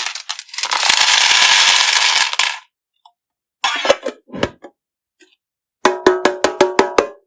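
Small hard candies pouring and rattling into a plastic tub, a dense continuous clatter that stops about two and a half seconds in. A few scattered clicks follow, and near the end comes a quick run of about eight pitched, ringing plinks.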